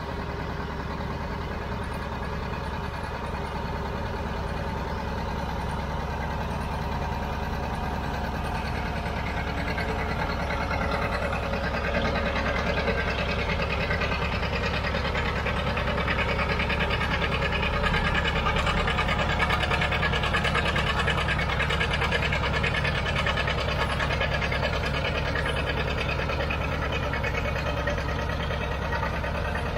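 Antique John Deere two-cylinder tractor engine running under load while pulling a weight-transfer sled. It grows louder as the tractor draws near and is loudest about two-thirds of the way through.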